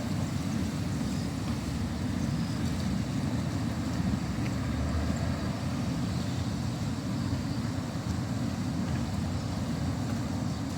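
Steady low rumble of downtown street ambience, with a few faint, scattered higher sounds.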